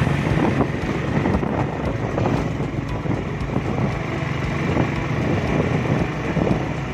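Vehicle engine running at a steady speed while travelling along a road, with wind noise on the microphone.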